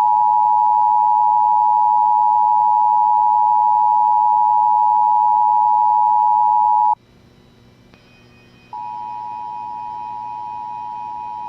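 Emergency Alert System attention signal: a loud, steady two-tone beep near 1 kHz that cuts off suddenly about seven seconds in. After a short gap with a faint hum, a second, quieter steady tone near the same pitch starts and holds.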